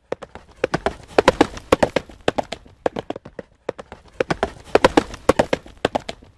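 Horse galloping: rapid, sharp hoof beats several times a second that grow louder twice over a low rumble.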